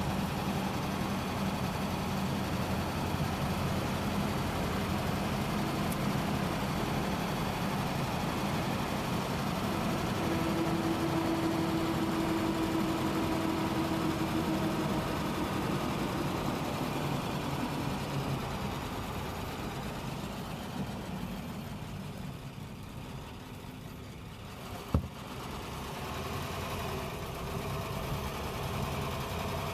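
Vintage Cadillac's engine running with road noise, heard from inside the car while driving. It eases off and gets quieter about three quarters of the way through, with one sharp click, then picks up again. A steady whine is heard briefly partway through.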